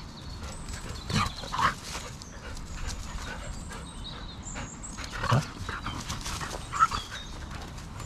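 A dog making a few short, irregular noises close by, with about four louder ones spread through the stretch, over a low rustling background.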